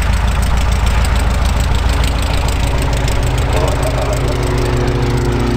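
Van's RV-7 light aircraft's piston engine and propeller running at low taxi power. About three and a half seconds in, a steadier humming drone sets in over the rumble.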